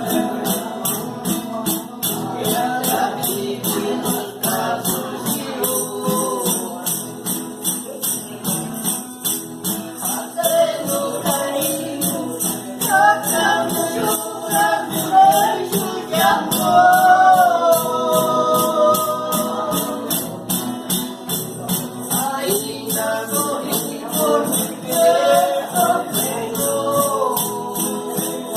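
Voices singing a song over a steady tambourine rhythm, its jingles shaking on every beat.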